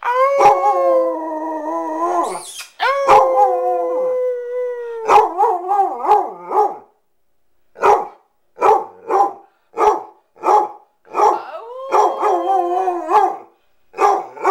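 Basset hound howling: two long, steady howls, then a run of short barking howls at a bit more than one a second, another long howl about twelve seconds in, and more short barks near the end.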